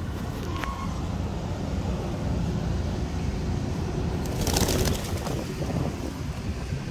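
Street pigeons cooing over a steady low rumble of street noise, with a short noisy burst about four and a half seconds in.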